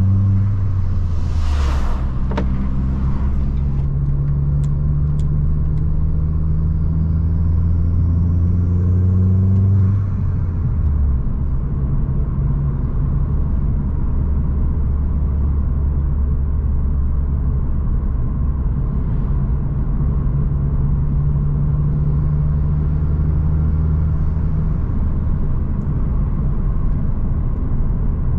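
Opel Astra G Bertone's 2.0 turbo four-cylinder engine running while the car is driven. A short hiss about two seconds in, then the engine note climbs slowly until it drops back about ten seconds in and runs steadily.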